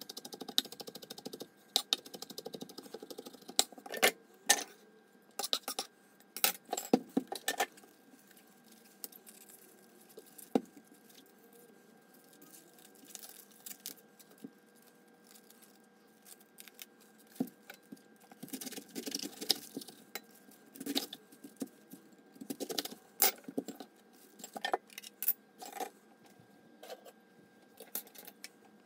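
A kitchen knife knocking on a wooden cutting board in irregular clusters of sharp taps as food is chopped and a head of green cabbage is cut into wedges. There is a quieter stretch in the middle.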